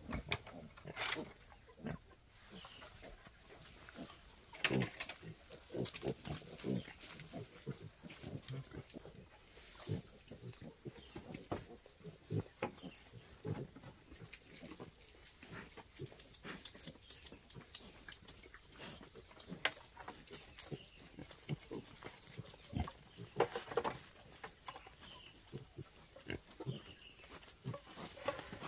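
Wild boars grunting around a bamboo pen, with scattered short knocks and rustles among the grunts.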